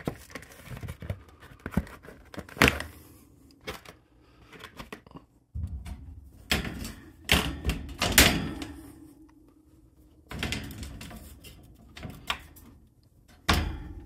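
Handling noise from a pleated air filter going into a ceiling return-air vent, then the vent's hinged grille being closed and its latch tabs turned: a series of knocks, thunks and scrapes, with the loudest clatters in the second half and near the end.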